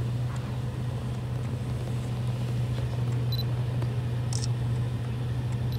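Engine of an open hunting vehicle idling with a steady low hum.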